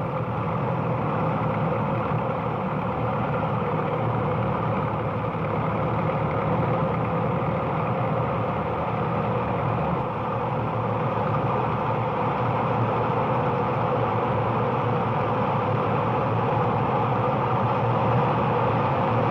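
Steady drone of many engines from a column of mechanised artillery and military vehicles rolling past, heard through a dull, narrow-band 1939 broadcast recording.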